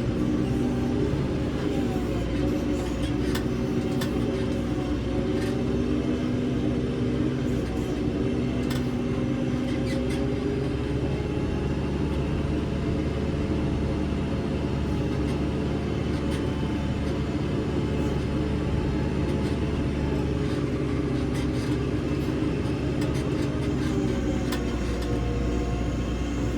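JCB 3CX backhoe loader's diesel engine running steadily under load while digging, its pitch drifting up and down a little, with occasional sharp clanks.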